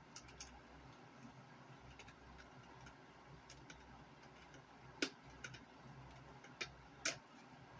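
Faint, scattered clicks and taps of small tools and parts being handled on an RC truck's suspension, with two sharper clicks about five and seven seconds in.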